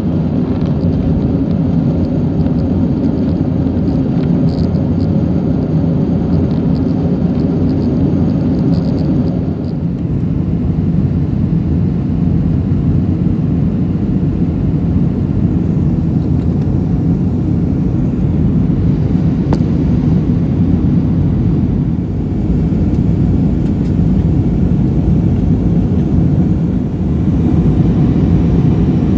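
Steady low roar of an Airbus A320's jet engines and rushing air, heard inside the cabin during the climb after takeoff. The higher hiss eases about ten seconds in.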